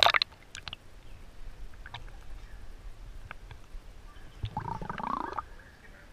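Pool water sloshing and gurgling around a camera held half-submerged at the surface, with a sharp splash right at the start and scattered small clicks. About four and a half seconds in comes a short muffled sound rising in pitch.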